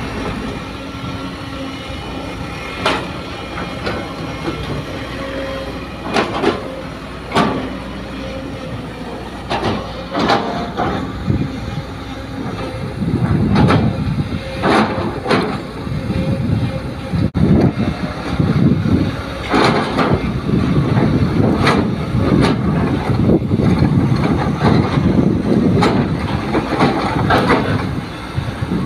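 Sumitomo hydraulic excavator working: its diesel engine runs steadily under load, with metallic clanks every few seconds from the bucket and boom. The engine grows louder and rougher about halfway through as it digs and loads soil.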